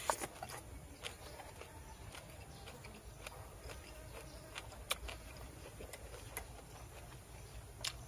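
Quiet eating sounds: scattered small clicks and smacks of chewing, with a few sharper clicks about a second in, around the middle and just before the end.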